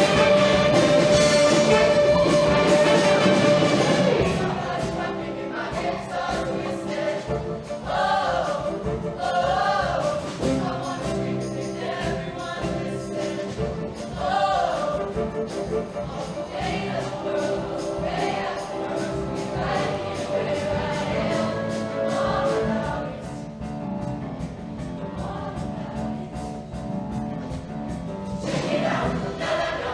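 Show choir singing with a live band: a loud held chord for the first four seconds, then softer sung phrases over steady accompaniment, swelling again near the end.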